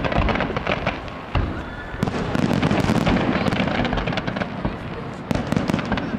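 Fireworks display: a rapid volley of bangs and crackling as shells are launched and burst in the air. The barrage eases briefly about a second in, then comes thick and fast.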